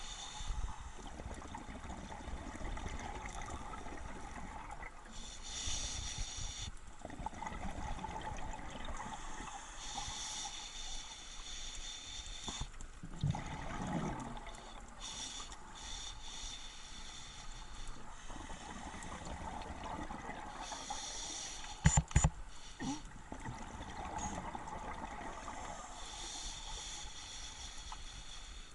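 Scuba diver breathing through a regulator underwater: a hissing inhale about every five seconds, each followed by a gurgle of exhaled bubbles. A short cluster of sharp knocks about three-quarters of the way through.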